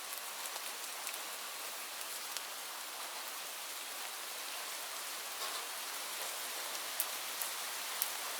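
Light rain falling steadily: an even hiss of rainfall with scattered individual drops ticking, a couple of sharper drop hits near the end.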